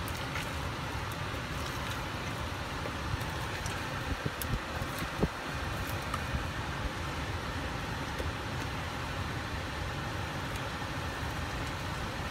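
Steady low hum and hiss of a car cabin with the vehicle running, with a few small clicks near the middle.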